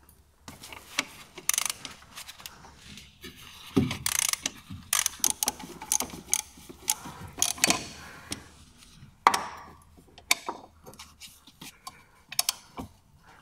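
Socket ratchet clicking in irregular short spurts as a 10 mm bolt is undone, with metallic clinks and scrapes of the socket on the bolt.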